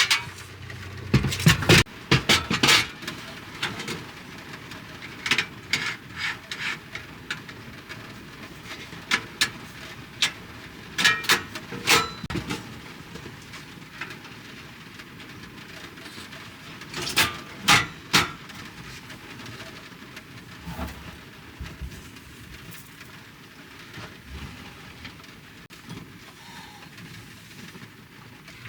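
Scattered clinks and knocks of cookware and utensils during cooking, in small clusters of sharp strikes over a steady faint hiss.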